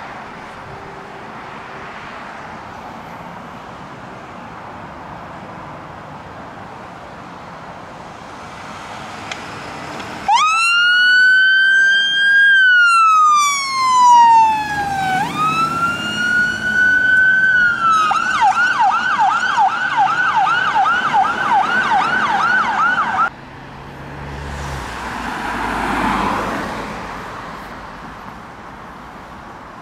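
Fire engine's electronic siren switching on about a third of the way in with a slow wail that rises, falls and rises again, then changing to a fast yelp. It cuts off suddenly. Before it there is engine and traffic noise, and after it a vehicle passes.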